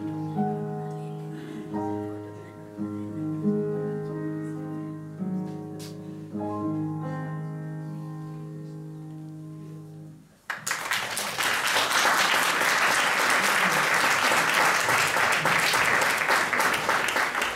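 Piano playing the last slow, held chords of a song, fading off about ten seconds in. The audience then breaks into steady applause that lasts to the end.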